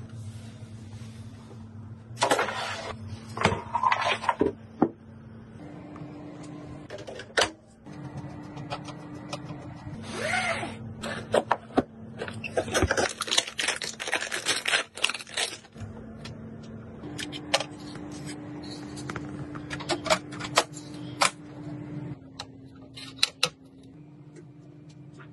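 Computer parts being handled and fitted: irregular sharp clicks and taps and short stretches of rubbing and scraping, over a steady low hum that shifts pitch a few times.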